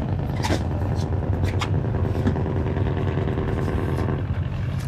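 An engine running steadily with a low rumble, with a few light clicks or knocks in the first two seconds.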